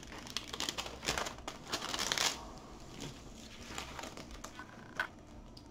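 Clear plastic protective film on a diamond painting canvas crinkling and rustling as it is handled, the rustles coming thickest in the first couple of seconds. One short tick sounds about five seconds in.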